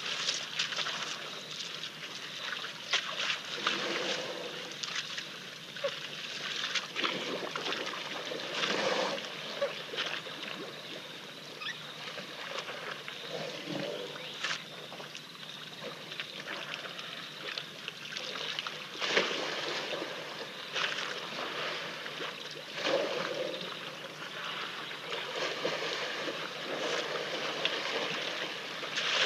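African elephants drinking at a waterhole: irregular splashes and trickles of water from their trunks, over a steady hiss.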